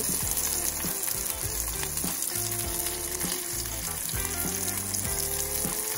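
Masala-coated fish frying in a little olive oil in a non-stick pan, a steady sizzle as the second side browns.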